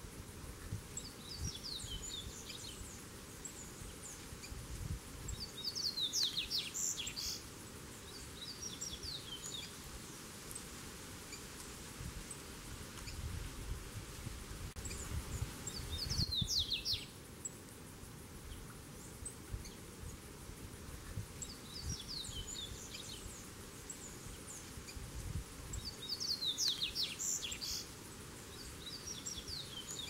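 Male double-collared seedeater singing: short, quick twittering phrases, repeated every few seconds, some louder and fuller than others.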